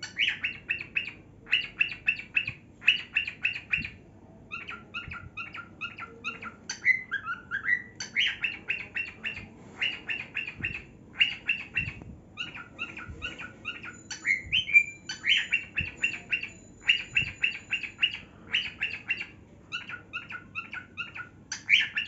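Cockatiel singing: a long run of short, rapid chattering phrases in quick succession, broken twice by a rising whistle.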